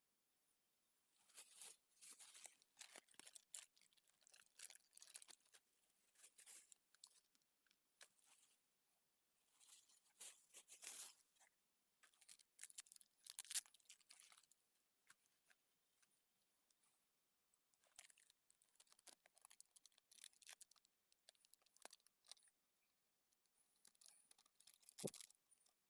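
Faint, irregular rustling and tearing noises in clusters of short crisp bursts, with one sharper, louder knock near the end.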